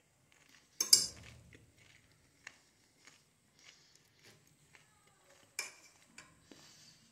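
Metal fork clinking against a dish while eating salad: two sharp clinks, about a second in and again near the end, with lighter taps in between.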